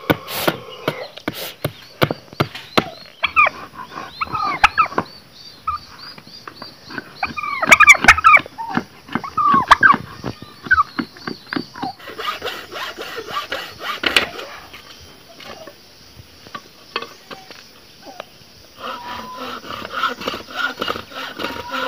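Sharp knocks and scrapes of a khukuri blade chopping and shaving a wooden stick, with farmyard fowl calling between the strokes. Later, the rasp of a hacksaw cutting the wood.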